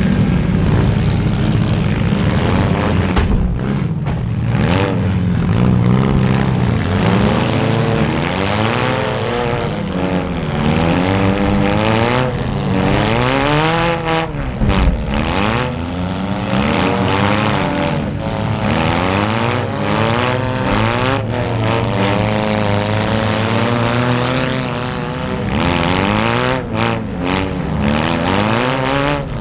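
Several small demolition-derby cars' engines revving up and falling away at once, their pitches sweeping over one another, with a few sudden bangs, the sharpest about halfway through.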